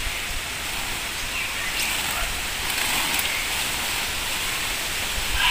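Steady outdoor hiss, like light rain or wind, with a few faint rustles and ticks as leafy plant stems are handled.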